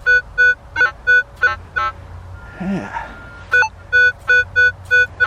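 Metal detector giving a string of short, identical beeps, about three a second, as the coil is swept over a buried target, with a steady tone in between near the middle. The repeated beeps mark a good, consistent signal, which the detector reads as a 12-20 target ID.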